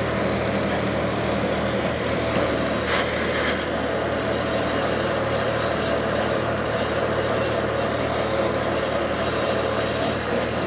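John Deere 5310 tractor's diesel engine running steadily as the tractor moves slowly with a trolley hitched behind it.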